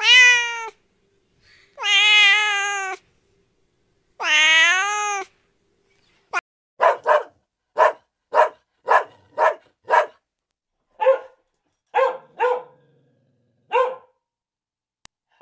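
A domestic cat meowing three times in long drawn-out meows, then a West Highland white terrier barking in about a dozen short, quick barks.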